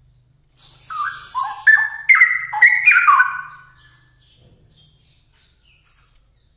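Straw-headed bulbul (cucak rowo) singing one loud phrase of quick, liquid notes jumping up and down in pitch, lasting about three seconds. A few faint short high chirps follow.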